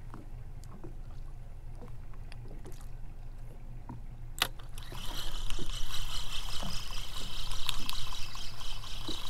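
A fishing reel's bail snaps shut with a sharp click about halfway through, then the spinning reel is wound fast, giving a continuous whirring hiss with a rapid flutter as a cast lure is retrieved.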